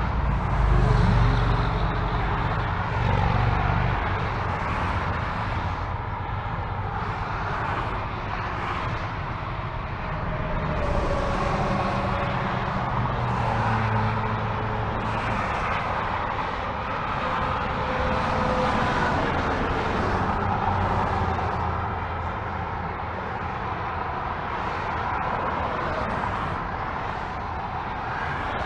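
Steady freeway traffic noise: cars and trucks passing at speed, the tyre and engine noise swelling and fading as each vehicle goes by. A louder, deeper pass comes in the first few seconds.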